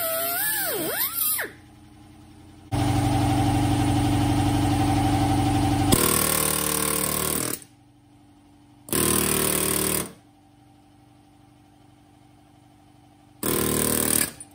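Air cut-off wheel slicing through steel, its whine sagging and rising in pitch as the disc bites, then winding down about a second and a half in. Then a pneumatic air ratchet runs in bursts on a bolt: one long run of about three seconds and two short bursts, one about nine seconds in and one near the end.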